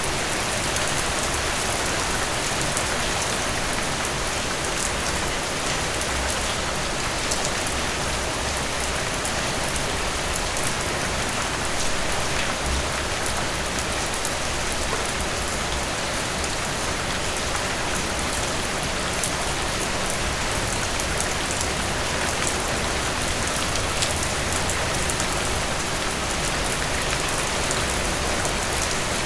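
Steady rain falling on a surface: an even hiss with occasional sharper drop ticks.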